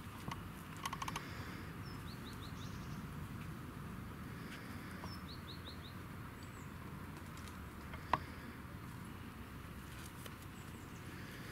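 Garden ambience with a small bird calling twice in the background, each call a quick run of four high falling notes. A few sharp clicks, the loudest about eight seconds in.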